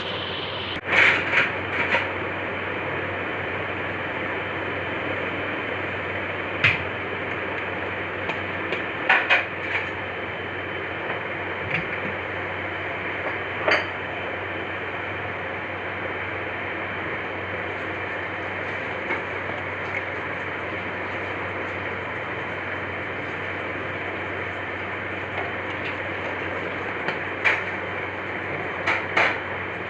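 Kitchen utensils clinking against cookware now and then over a steady hissing background noise.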